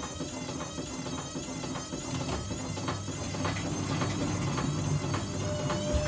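Zanussi ZWF16070W1 front-loading washing machine drum spinning, its motor whine wavering up and down in pitch while the drum rumble grows louder.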